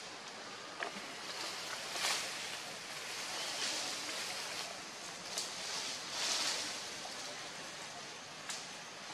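Forest ambience: a steady hiss of leaves and air with several swells of rustling and a few short clicks.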